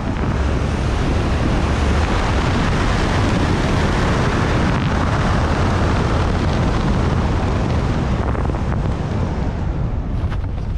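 Airflow buffeting the microphone of a skydiver's body-mounted camera during descent under an open parachute canopy: a steady, deep wind noise. It thins out over the last couple of seconds as the canopy slows on the approach to landing.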